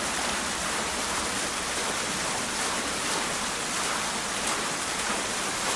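Water fountain splashing: a steady, even hiss of falling water, mostly high-pitched.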